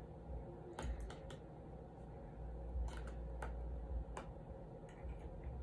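Quiet eating sounds: a metal fork clicking against a plate and chewing of crunchy pickled bamboo shoot, heard as a scattering of short sharp clicks.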